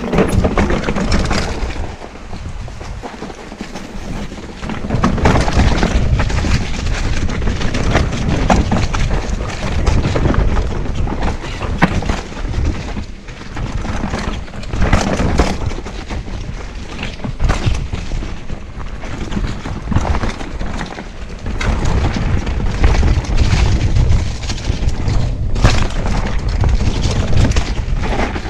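Mountain bike riding fast down a rocky dirt trail, heard up close on the bike: a loud, uneven low rumble of tyres on the ground and wind, with frequent sharp knocks and rattles as the bike hits rocks and bumps.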